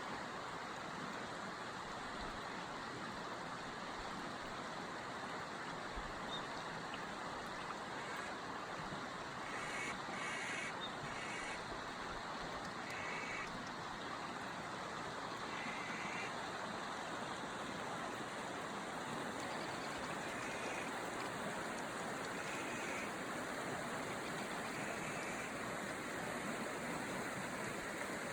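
Steady rush of flowing water, with a bird giving a run of short repeated calls around the middle.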